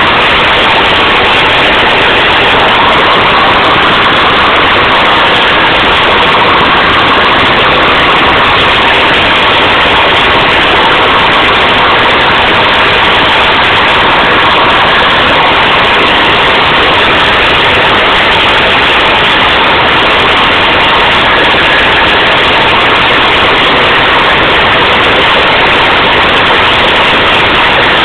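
OT-64 SKOT eight-wheeled armoured personnel carrier on the move along a muddy track, its Tatra V8 diesel running steadily and very loud, heard from on board.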